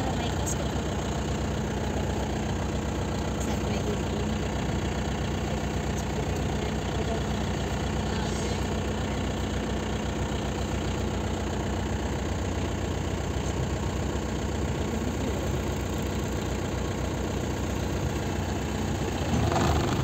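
A vehicle's engine idling steadily, getting louder about half a second before the end as the vehicle starts to move off.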